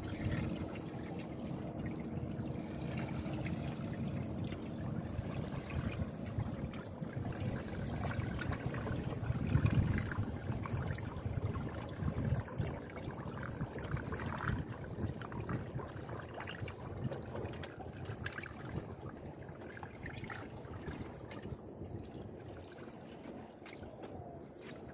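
Water splashing and trickling around a sailboat's transom and its self-steering rudder blade as the boat moves along, a little louder about ten seconds in.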